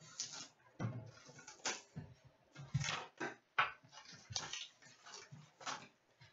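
Plastic shrink-wrap being slit and peeled off a box of hockey cards, crinkling on and off, with a few light knocks from handling the box.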